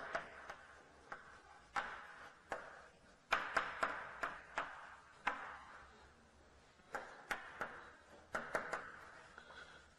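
Chalk writing on a blackboard: sharp taps of the chalk against the board and short scratchy strokes, in clusters with a brief pause about six seconds in.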